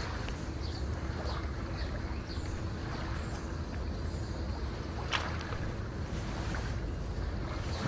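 Outdoor harbour-side ambience: wind rumbling on the microphone over a steady low background. Faint short high chirps come and go, and there is one sharp click about five seconds in.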